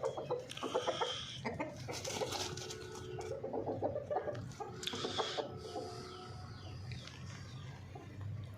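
Chickens clucking in a series of short repeated calls, with a few brief sharper noises among them.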